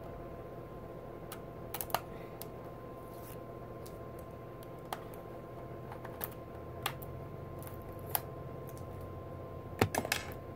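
Scattered small clicks and taps of an eyeshadow palette's packaging being handled, a few seconds apart with a quick cluster near the end, over a steady low hum with a faint high tone.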